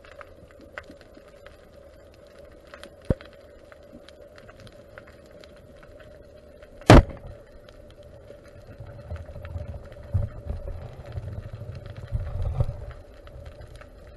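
Underwater, a camera strikes the seabed with one loud crunch about halfway through. A few seconds of low rumbling knocks follow, over a faint steady tone.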